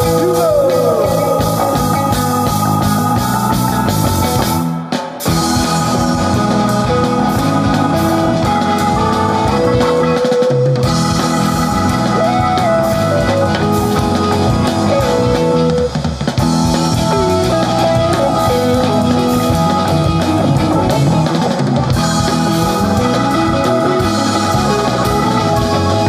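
Rock band playing an instrumental passage on drum kit and guitar over held chords, with a few bent notes. The band drops out for a moment about five seconds in and again about sixteen seconds in.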